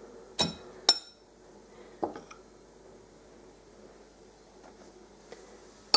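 Metal spoon clinking against glass bowls as rye flour is scooped and tipped into dough: three clinks in the first two seconds, then a faint room hush, and one more sharp click near the end.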